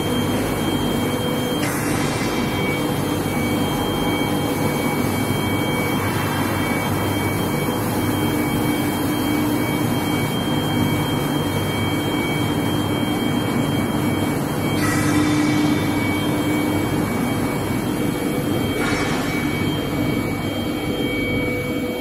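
A steel-bar induction hardening and tempering line running: steady, even machine noise with a low hum and a high whine of held tones.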